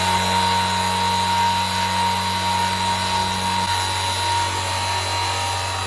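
Homemade mini table saw driven by a 12 V 775 DC motor, running steadily with its blade spinning: a low hum under a constant high-pitched whine.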